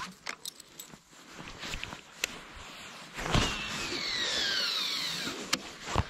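Baitcasting reel's spool spinning out as a lure is cast: a whirring whine that falls steadily in pitch over about two seconds as the spool slows, followed by a sharp click. Small handling clicks come before the cast.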